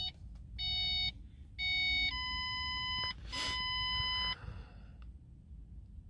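Electronic warning chimes with the ignition on during a tuner reflash: two short chimes about a second apart, then two longer steady beeps of about a second each, stopping a little over four seconds in. A low steady hum sits under them.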